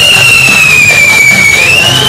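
A loud, high whistling tone sliding slowly downward in pitch, turning upward near the end, over band music.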